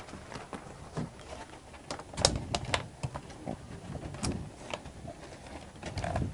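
Scattered sharp clicks and knocks, with a tight cluster about two seconds in, the loudest of them, and another a little past four seconds, over a low rumble.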